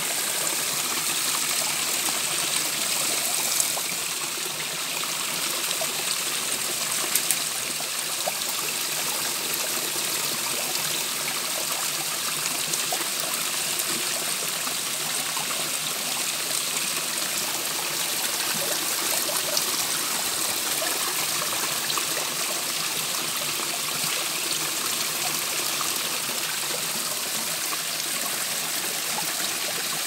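Small waterfall running low, a thin flow of water trickling and splashing down a rock face in a steady hiss.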